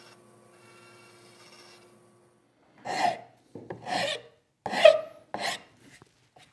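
A bandsaw runs faintly for about the first two seconds. Then a hand file is drawn four times across the edge of a hard maple workpiece, smoothing away bandsaw blade marks.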